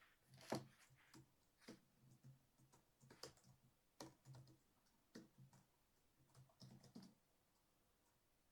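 Faint, irregular typing clicks on a computer keyboard.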